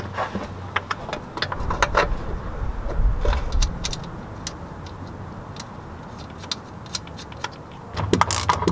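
Light metal clicks and clinks as a clutch slave cylinder is pushed onto the transmission and its nuts are threaded on by hand. Near the end a socket ratchet starts clicking quickly as a nut is run down.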